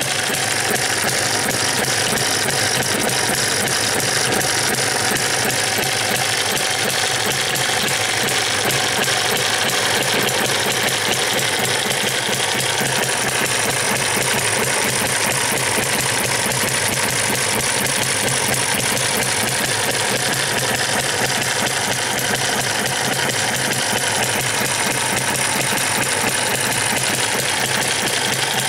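Eachine ET1 model single-cylinder hit-and-miss gas engine running steadily, a fast, even mechanical clatter, while belt-driving a 12 V DC motor as a generator.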